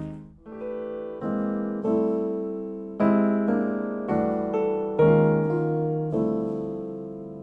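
Keyboard music, slow piano-like chords struck about once a second and left to fade out. It is played back through Tang Band W4-2142 4-inch full-range drivers in small bass-reflex cabinets.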